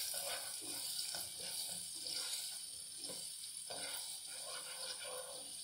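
Chopped onions sizzling faintly in hot ghee in a pot, being fried toward golden brown, with a spatula stirring and scraping them against the pot now and then.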